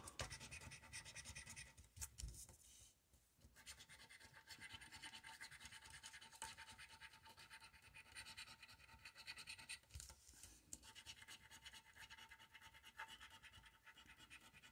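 Faint, rapid scratching of a lottery scratch-off ticket as its latex coating is scraped away stroke by stroke, with short pauses about three seconds in and again about ten seconds in.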